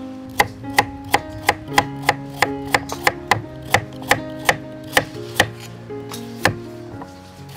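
Kitchen knife slicing a raw carrot into rounds on a wooden chopping board: sharp, even chops at about three a second, each blade striking through to the board. Soft background music plays underneath.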